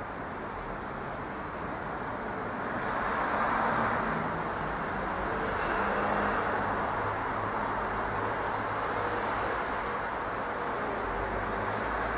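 Steady hum of road traffic, swelling a little a few seconds in and again around the middle.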